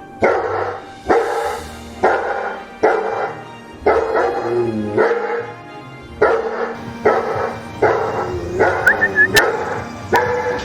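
A dog barking repeatedly over background music, the barks coming about once a second with a quicker run of them near the end.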